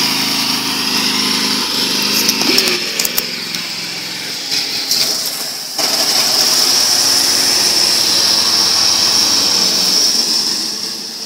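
John Deere riding lawn tractor's engine running steadily while it drives, with a high whine over the engine note and the mower blades disengaged. The engine dies away near the end as the tractor stalls.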